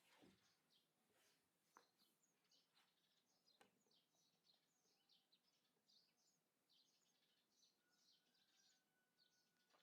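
Faint outdoor birdsong: many short, high chirps, with a few soft clicks and a thin steady tone near the end.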